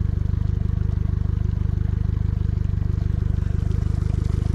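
Honda four-stroke outboard motor idling steadily with a low, even, fast-pulsing run.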